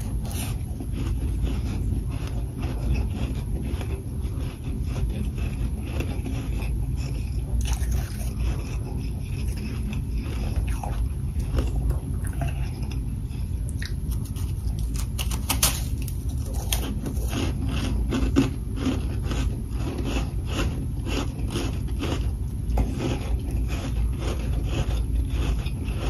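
Humidifier freezer frost crunching and crackling as it is bitten and chewed close to the microphone, with many small sharp crackles and a louder bite about midway. A steady low rumble runs underneath.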